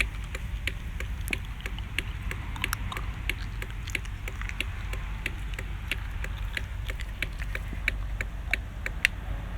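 Blinker (flasher) relay clicking rapidly and evenly, about three clicks a second, over a low steady hum.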